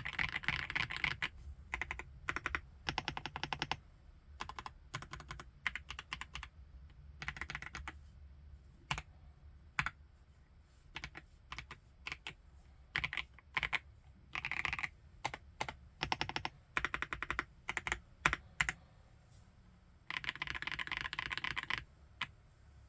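FL-ESPORTS OG98 mechanical keyboard with MX Ice Silver switches being typed on. Fast runs of keystrokes alternate with single key presses and short pauses, and the densest run comes near the end.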